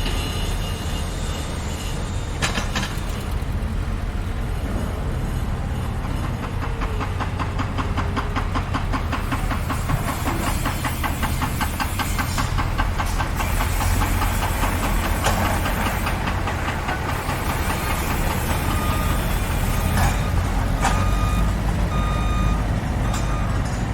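A heavy vehicle's engine runs with a steady low rumble, and a fast mechanical rattle joins it through the middle. There is a single clank about two and a half seconds in and a few short beeps near the end.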